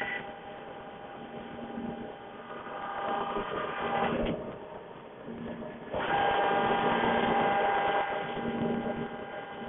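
CNC machine running, its stepper motors whining with steady tones as the axes move; the sound changes in loudness and is loudest for about two seconds past the middle.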